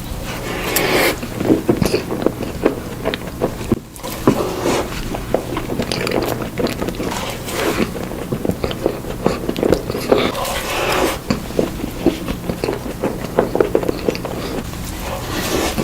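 Close-miked eating of profiteroles: many quick bites and wet chewing and smacking mouth sounds, over a steady low hum.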